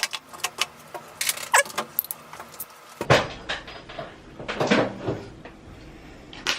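Metal hand tools clinking and rattling as they are handled: a string of sharp clicks and clatters.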